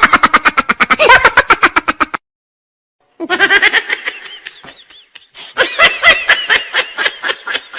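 Laughing sound effects: a rapid burst of laughter that stops about two seconds in, then after a second's pause a second, higher-pitched rapid laugh that runs on with short breaks.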